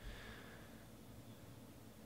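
Near silence, with a faint, brief rustle of trading cards sliding against each other in the hands that dies away within the first second.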